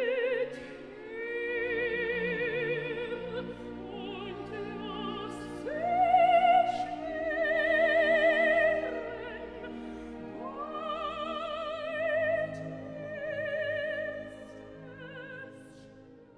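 Classical background music: slow, long held melody notes with wide vibrato in an operatic style over a sustained accompaniment, fading out toward the end.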